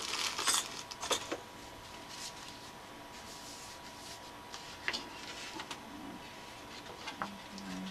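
Stiff folded cardstock rustling and crackling as it is handled. The loudest rustle comes right at the start, followed by a few sharp paper clicks, then quieter scattered ticks of paper being flexed and set against the cutting mat.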